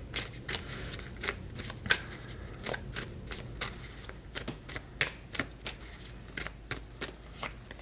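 A deck of tarot cards being shuffled by hand: an irregular run of short, light card clicks and slaps, a few a second.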